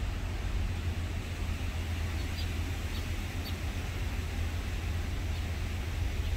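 Outdoor ambience: a steady low rumble, with three short bird chirps around the middle.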